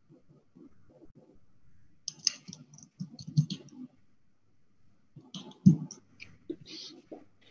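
Scattered faint clicks and taps, coming in two short clusters about two and five seconds in, picked up by an open video-call microphone.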